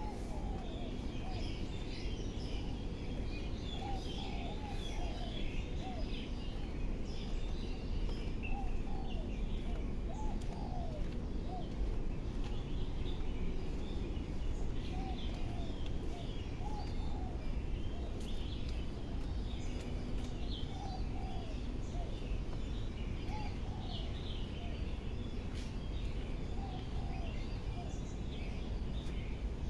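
Several birds chirping and calling, with short high chirps and repeated lower whistled notes, over a steady low background rumble.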